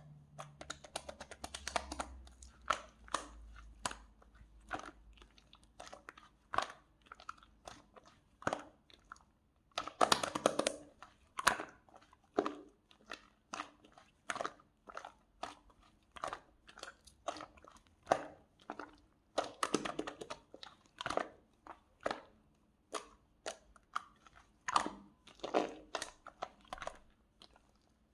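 Close crisp crunching, one sharp crunch about every half second, with louder, denser bursts of crunching about ten, twenty and twenty-five seconds in.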